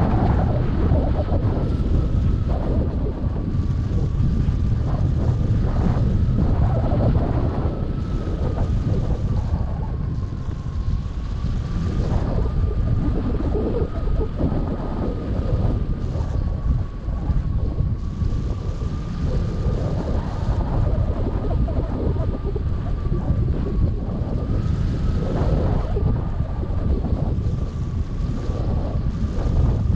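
Airflow buffeting the microphone of a camera mounted on a hang glider in flight: a loud, uneven rushing rumble, with a thin steady whistle underneath that drifts slightly in pitch.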